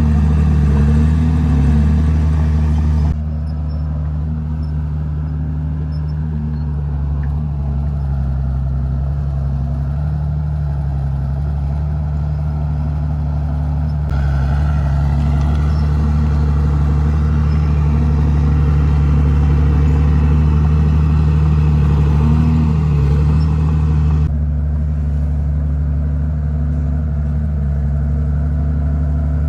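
Komatsu D51PX crawler bulldozer's diesel engine running steadily as it works, its pitch dipping and rising slightly now and then. The tone and level shift abruptly a few seconds in and again near the end.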